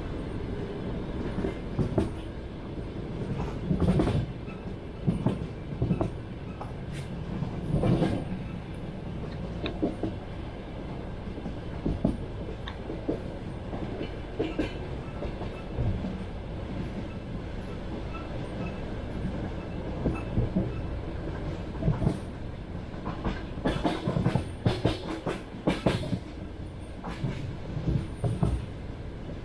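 Train wheels clattering over rail joints: a steady rumble with sharp clickety-clack strikes coming in small groups, bunched most densely near the end.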